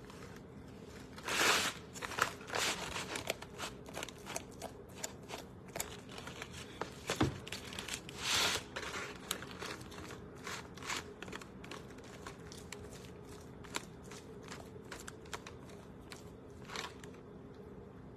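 A fork shredding cooked chicken: irregular scrapes and clicks of the fork against the dish, with a few longer scrapes as it drags and tears through the meat.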